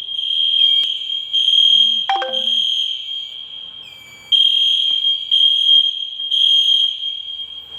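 Fire alarm sounder set off by a manual call point test, sounding a continuous high-pitched tone that swells about once a second. It gets louder about four seconds in.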